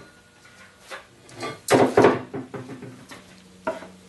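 Irregular knocks and clatter of a gloved hand handling a 1095 steel test blade clamped in a bench vise. The loudest run of knocks comes about two seconds in, with a few lighter taps after it.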